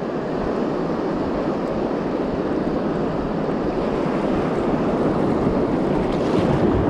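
Ocean surf washing ashore with wind buffeting the microphone, a steady rushing noise that swells a little about six seconds in.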